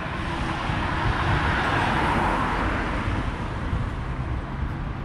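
A car passing along the street: tyre and engine noise swells to a peak about two seconds in and then fades away, over steady traffic hum.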